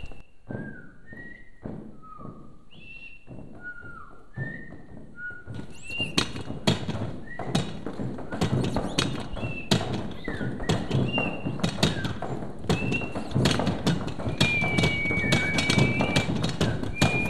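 Clip-clop tapping and knocking that turns quick and dense about five seconds in, with short chirps sliding down in pitch repeating throughout and one longer held whistle-like tone near the end.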